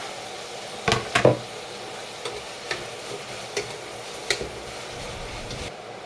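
Green beans sizzling in olive oil in a frying pan, with several sharp knocks and clatters against the pan, the loudest pair about a second in. The sizzling hiss drops away near the end.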